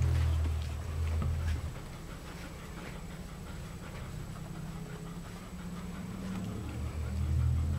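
Alaskan Malamute puppies scrabbling and jostling, with many small clicks and scratches, while the adult malamute pants. A low rumble sits under the first second and a half and again near the end.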